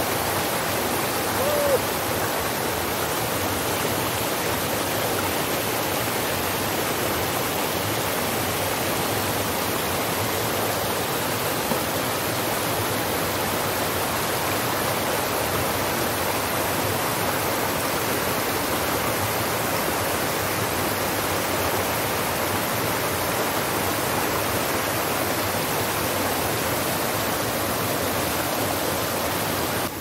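Small waterfall on a mountain stream: a strong current rushing and splashing white over rocks, a steady, intense rush of water.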